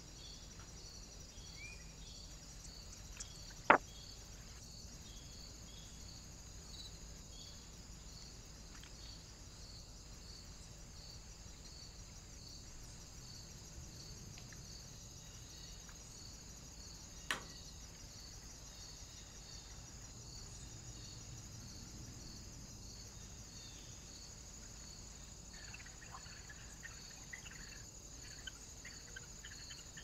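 Faint, steady chirping of insects, cricket-like, with an even pulse. Two sharp clicks, about four seconds in and again past halfway, are the loudest sounds, and a few faint bird chirps come near the end.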